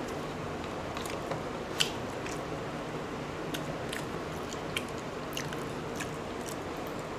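Close chewing of fried boiled eggs, with irregular wet mouth clicks and smacks, the loudest about two seconds in.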